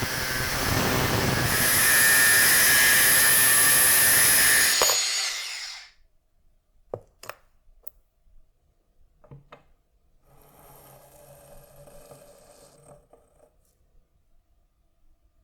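Power tool running hard, then switched off about five seconds in and spinning down over a second. A few light clicks and a faint rubbing follow.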